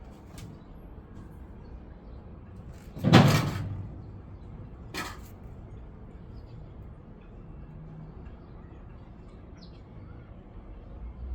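A heavy thud about three seconds in, then a lighter knock about two seconds later, over a steady low background noise.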